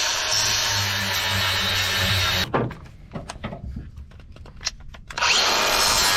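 Angle grinder with a flap disc grinding the point of a steel forestry-mulcher tooth clamped in a vise. The grinding runs for about two and a half seconds, breaks off for a few knocks and clicks, and starts again about five seconds in.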